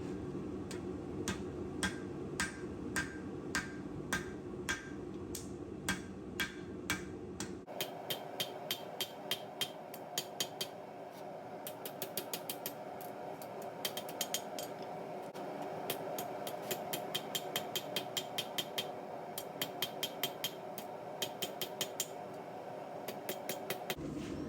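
Hand hammer striking a hot steel file on an anvil during forging, a steady run of ringing blows over a constant background hum. The blows come about one and a half a second at first, then in quicker runs after a cut about eight seconds in.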